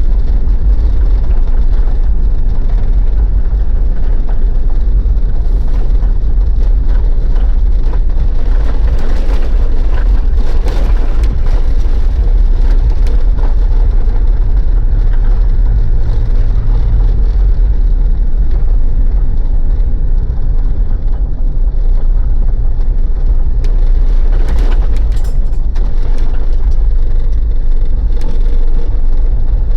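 Mitsubishi Pajero's diesel engine running under way with steady tyre and road noise, a deep even drone.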